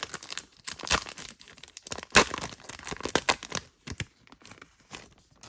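Foil wrapper of a Japanese Pokémon card booster pack being torn open and crinkled: a dense run of sharp crackling rustles that thins out about four seconds in.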